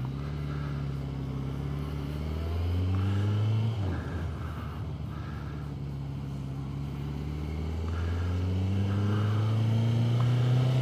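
Honda CBR1100XX Blackbird's inline-four engine pulling away from a standstill, its pitch climbing through the gear. It drops at a shift about four seconds in, then climbs steadily again to another shift at the end.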